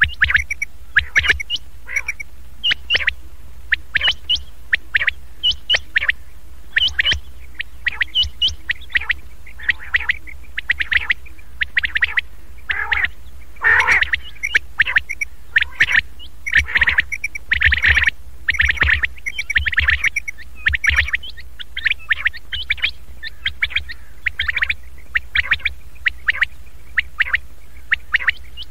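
Recorded common quail calls played as a hunting lure to draw in mature quail. Short, clipped calls come in quick clusters, over and over, over a steady low hum.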